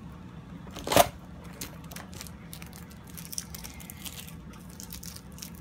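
A single sharp knock on a wooden tabletop about a second in, as a cardboard toy box is set down, followed by faint crinkling and small clicks of peeled-off packing tape being rolled up between fingers.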